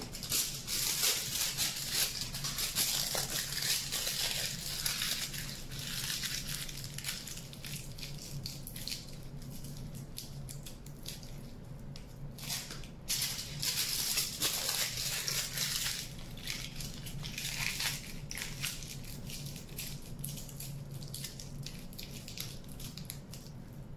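Aluminium foil crinkling and crackling as it is crumpled, squeezed and pressed around the wire legs of a sculpture armature, coming in irregular spells with short pauses. A faint steady low hum lies underneath.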